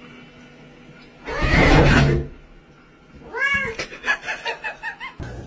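Domestic cat meowing: one loud, harsh call about a second and a half in, then a run of short, quick meows rising and falling in pitch near the end.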